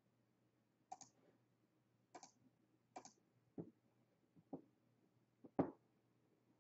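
Faint, scattered clicks of a computer mouse and keyboard, about six over a few seconds, the last one the loudest.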